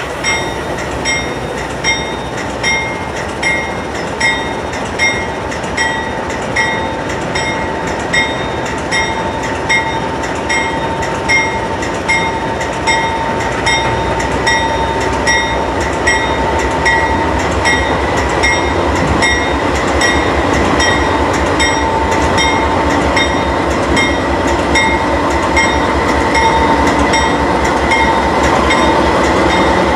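BNSF freight train's GE diesel locomotives passing close by: engines running and wheels rumbling on the rails, growing louder in the second half as the locomotives go past. A bell rings steadily, a little faster than once a second, fading after about two-thirds of the way. A steady high-pitched tone sounds throughout.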